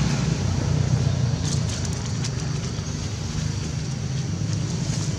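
Steady low hum of a running engine, with a few faint ticks about a second and a half in.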